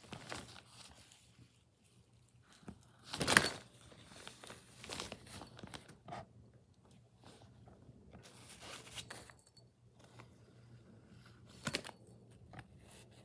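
Intermittent rustling and crinkling of crinkly material in scattered short bursts, the loudest about three seconds in.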